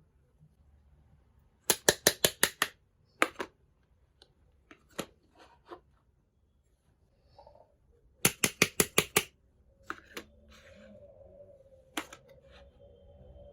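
Scissors snipping through packaging during an unboxing: two quick runs of about six sharp snips, about five a second, with scattered single clicks between them.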